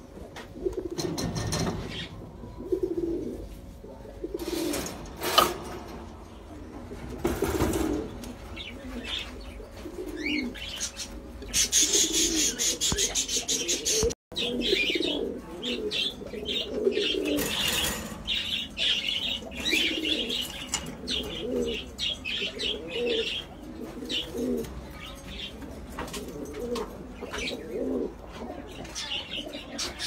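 Domestic pigeons cooing over and over, with small cage birds chirping high above them for long stretches and occasional wing flaps.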